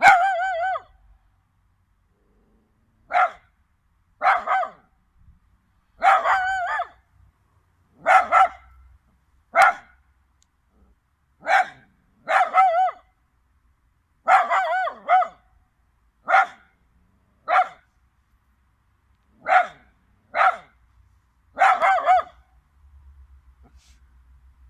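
Chinese crested dog crowing like a rooster: about fourteen high, wavering cries in irregular groups, some short yelps and some drawn out to nearly a second.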